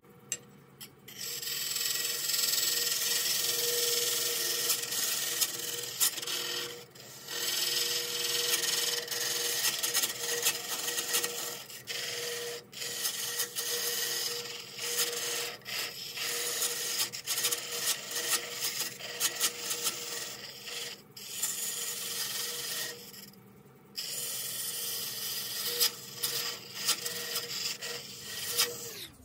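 A turning tool cutting into spinning tea tree (melaleuca) wood on a lathe, parting off the base of a vase: a loud, rough scraping that starts about a second in and breaks off briefly several times as the tool eases off, over the lathe's steady hum.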